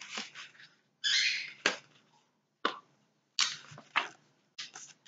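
Sheets of patterned scrapbooking paper rustling and flapping as they are handled and turned over. The sound comes in several short bursts, with a few sharp taps between them.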